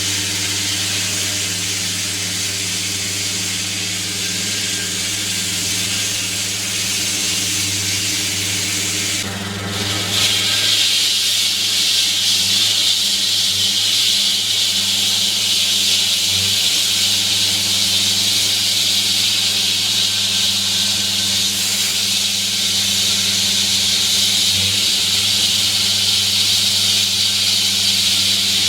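Water-cooled walk-behind diamond concrete saw cutting the road surface: its engine runs steadily under a loud, high hiss of the blade grinding through the pavement. About ten seconds in the sound dips for a moment, then the hiss comes back louder and brighter.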